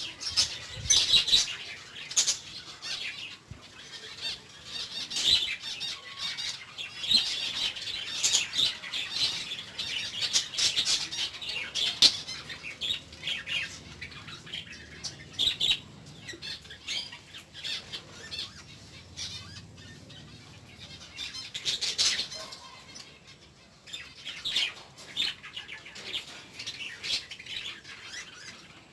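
Pet lovebirds chattering with short, high-pitched chirps and squawks in irregular bursts, along with some wing flapping.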